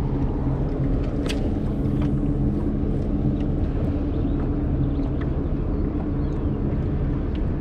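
A boat's engine running steadily, a low even hum under wind and water noise, with a couple of faint clicks.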